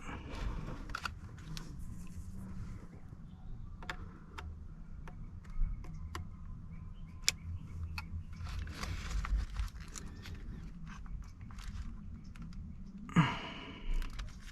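Hand handling noise while working on plastic wiring connectors: scattered small clicks and rustles over a low rumble, with louder rustling bursts near the start, around the middle and near the end.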